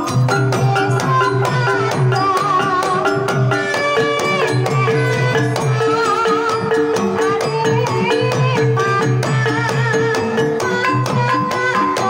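Javanese Banyumasan gamelan music playing a tayub gending. The kendang hand drum keeps a steady beat and small bronze gong kettles are struck with a mallet, under a melody that wavers in pitch.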